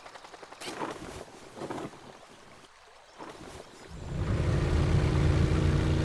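A motor engine sound effect comes in about four seconds in and runs steadily at a low, even pitch. Before it there are only a few faint brief sounds.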